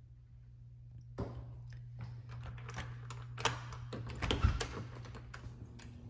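Footsteps on a tile floor and a series of clicks and knocks as a back door is unlocked and opened, over a steady low hum.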